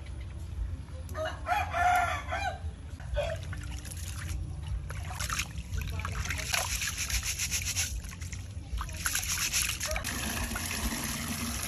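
A rooster crows once about a second in, a single call lasting about a second and a half. From about five seconds in, hands swish and scrub rice in a metal bowl of water, making splashing, sloshing sounds.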